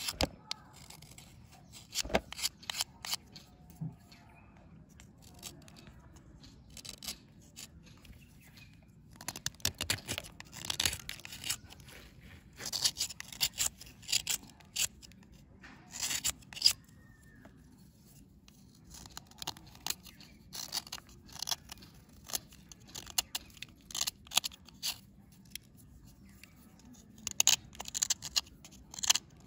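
Small knife blade scraping and shaving a dry, powdery red bar, crisp scratchy strokes in bunches with quieter pauses between.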